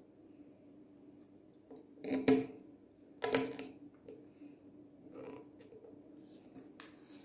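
Hands handling a plastic fairy-light controller box and its wire on a table top: two sharp clacks about a second apart, then a few lighter clicks.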